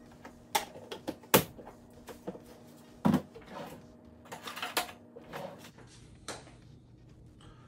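Kitchen handling sounds: a string of sharp knocks and clacks as a plastic measuring cup and ingredient containers are picked up and set down on the counter, with short scraping and rustling between them. The sharpest knock comes about one and a half seconds in, and a heavier thud about three seconds in.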